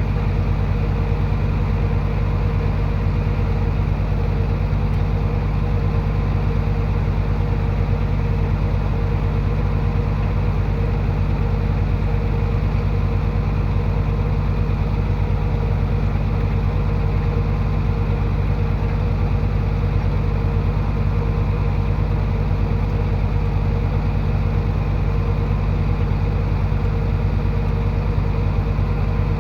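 Heavy earthmoving machinery's diesel engine running steadily at an even speed, with no revving or changes.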